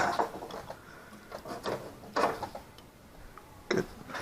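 Hand tools being handled on the engine: a few short metal clinks and knocks, spaced irregularly.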